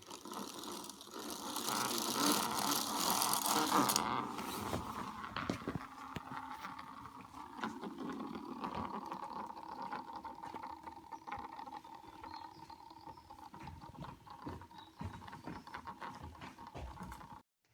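Lego Technic spinning top: a loud whirring for the first four seconds as it is spun up, then a steady hum with rattling plastic clicks while it spins on a surface, slowly fading. The sound cuts off abruptly near the end.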